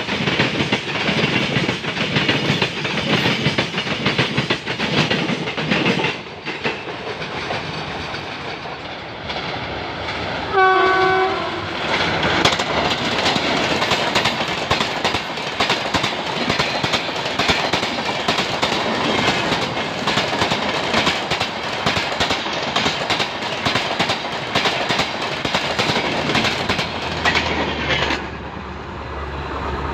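Goods wagons clattering past on the rails, then a locomotive horn sounds once for about a second, followed by the steady rush and clickety-clack of passenger coaches going by at speed, dropping away near the end.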